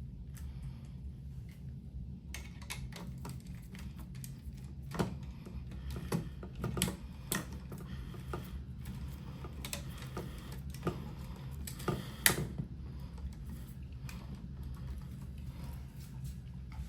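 Irregular clicks and taps of hand wiring work in an electrical switch box, as wires and connectors are handled and fitted, with a few louder snaps. A steady low hum runs underneath.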